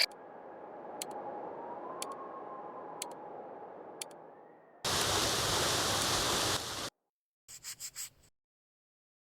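Sound-effect clock ticking, about once a second, for the first four seconds. It is followed by a loud burst of rushing noise lasting about two seconds, then four or five short quick noise bursts, then silence.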